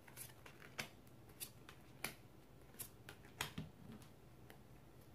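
Tarot cards handled and dealt from a deck onto a table: faint, scattered light clicks and slaps of card on card, about a dozen spread over a few seconds.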